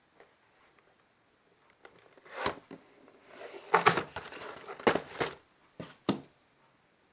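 Ceiling fan packaging handled by hand during unboxing: several separate crinkling, rustling bursts, the longest and loudest cluster about four seconds in.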